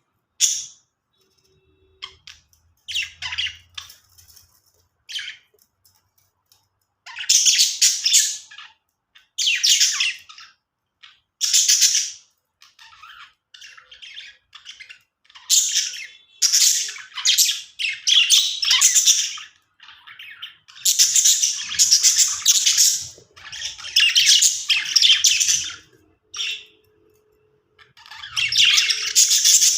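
Budgerigars chattering and squawking in busy bouts of a second or two, with short pauses between them; the bouts come closer together and run longer in the second half.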